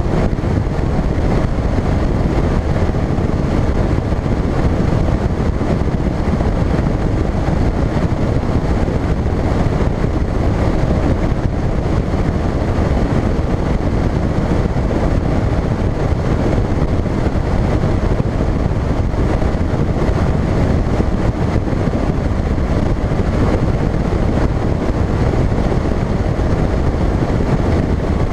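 Bass boat running at speed on a lake: a steady, loud rush of wind on the microphone over the outboard motor running underneath.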